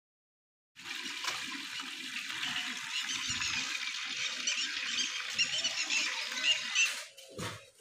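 A dense chorus of many small birds chirping, starting abruptly about a second in and cutting off near the end, followed by a single low thump.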